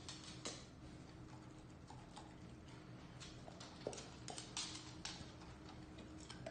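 A dog's claws clicking and tapping on a hard floor in faint, irregular taps, over a low steady hum.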